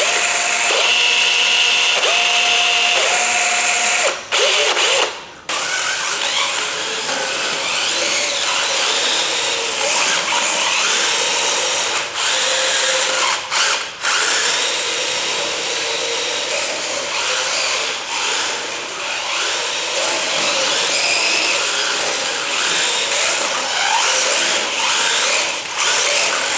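Small robot rover's electric wheel motors whining, first in a few short runs at a steady pitch with the wheels spinning free, then a continuous rough whirring as the robot drives and skid-steers across a concrete floor, rising and falling with the throttle.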